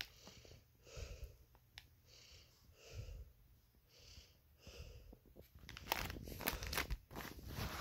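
Clear plastic underwear packaging crinkling as it is handled, starting about six seconds in and going on as a dense run of crackles. Before that, soft puffs of breath close to the microphone, about one every second.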